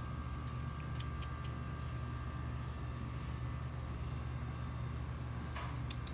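Steady low machine hum with a thin steady whine above it, a few short faint high chirps in the first four seconds, and scattered light clicks.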